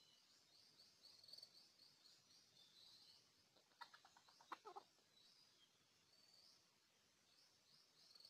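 Faint, high chirping of small birds, repeated throughout. About four seconds in comes a brief run of quick, lower clucks.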